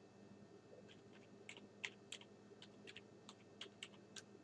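Faint typing on a computer keyboard: a quick, irregular run of key clicks starting about a second in.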